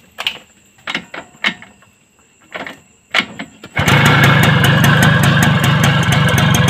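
TVS XL Super's two-stroke engine being started: a few separate knocks, then about four seconds in the engine catches and runs loud and steady with a fast even beat. The silencer's muffler has just been cleared of the carbon that was choking the exhaust and costing pickup.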